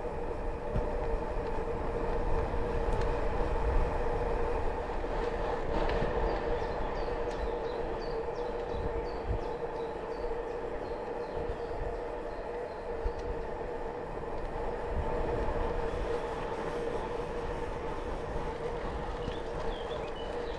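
Canyon gravel bike rolling steadily on a smooth paved path: an even tyre hum with wind rumble on the camera microphone. A few high bird chirps come partway through and again near the end.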